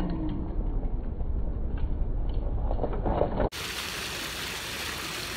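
Low rumble with a few light clicks as a mountain bike rides over rough tarmac. About three and a half seconds in, it cuts abruptly to the steady hiss and splash of a plaza fountain's water jets.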